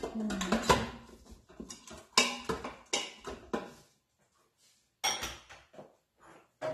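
Wooden spoon stirring and scraping onion and celery sautéing in the stainless steel inner pot of an Instant Pot, a dense run of clicks and knocks. It stops after about three and a half seconds, and a few separate knocks follow near the end.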